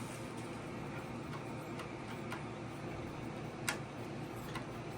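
Light irregular metal clicks and ticks, about six, the loudest near four seconds in, over a steady low hum: a part being hand-threaded onto the left-hand-threaded end of a Nova Orion lathe's motor, turning stiffly.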